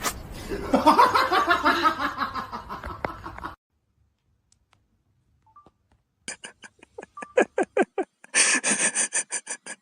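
Laughter in quick repeated bursts, several a second, starting after a break of nearly three seconds. Before the break there is a stretch of high, wavering vocal sound that cuts off about three and a half seconds in.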